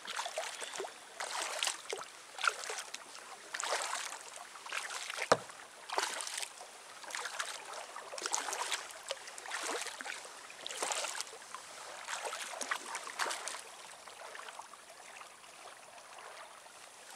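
Kayak paddle strokes: the blades dip and splash in the water about once a second, with one sharp knock about five seconds in. The strokes grow fainter near the end.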